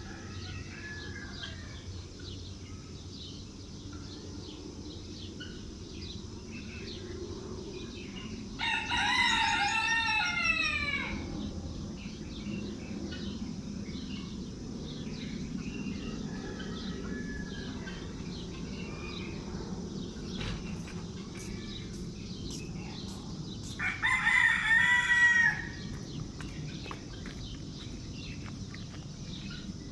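Rooster crowing twice, about fifteen seconds apart, the first crow longer than the second. Faint chirping of small birds runs underneath.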